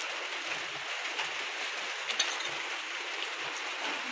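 A steady hiss with a few faint ticks and a small knock about two seconds in.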